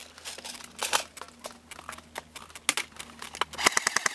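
Scattered single snaps of airsoft shots, then about three and a half seconds in an airsoft gun opens up on full auto: a rapid, even rattle of roughly fourteen shots a second.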